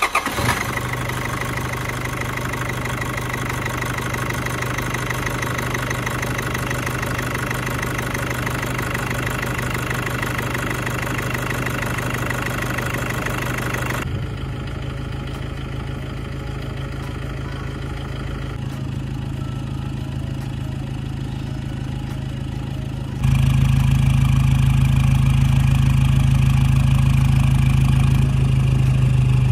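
Toyota Innova's 2.5-litre four-cylinder turbodiesel, fitted with an open air filter, idling steadily just after starting. It is heard first at the open engine bay. From about two-thirds of the way in it is heard at the tailpipe, where the exhaust is louder, with more low rumble.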